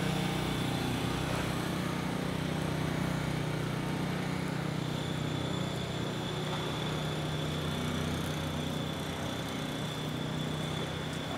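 City street noise with a steady low mechanical hum; a thin, high-pitched whine joins about halfway through.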